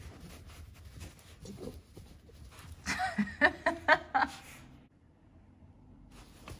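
Miniature dachshunds shuffling and rustling in a fleece dog bed with faux-fur blankets as a wet one climbs over the other. About three seconds in, a short run of five or so sharp, pitched vocal sounds rises above the rustling.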